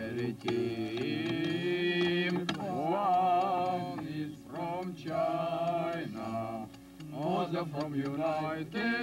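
A man singing a slow tune in long, drawn-out notes, with short breaks between phrases.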